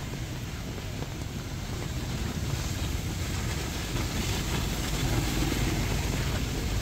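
Heavy rain falling steadily, with the engines of street traffic running underneath it, growing slightly louder during the second half.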